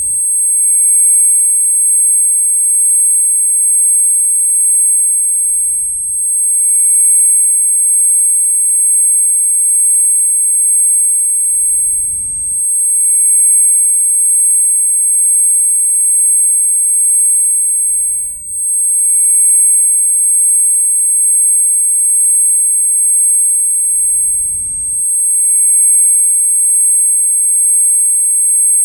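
Ear-ringing (tinnitus) sound effect: a loud, steady, very high-pitched tone with a few fainter steady tones beneath it. A faint low thump comes about every six seconds.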